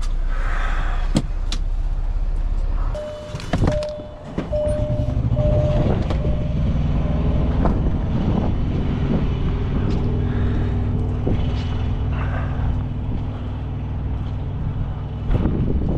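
Semi-truck diesel engine idling, heard first from inside the cab and then from outside once the driver is out. About three seconds in there are knocks from the cab door and a string of short beeps at one pitch.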